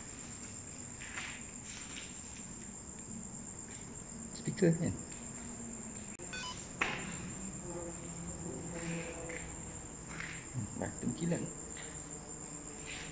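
Crickets chirring steadily as a high, unbroken background. A brief louder low sound with falling pitch comes about halfway through, a sharp click follows a couple of seconds later, and a few soft short sounds come near the end.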